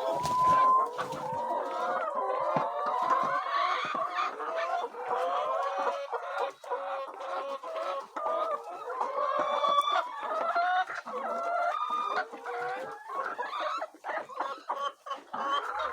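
A flock of chickens clucking, many birds calling over one another without a break.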